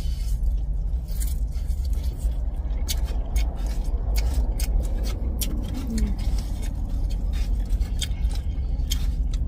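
Eating sounds: plastic forks scraping and clicking against foam takeout containers while chow mein noodles are slurped and chewed, with many short sharp clicks throughout. Under it runs a steady low rumble inside the car.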